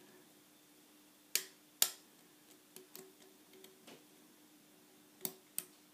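Lock pick clicking against the serrated pins of a challenge lock as they catch and set: two sharp clicks about a second and a half in, fainter ticks in the middle, and two more sharp clicks near the end.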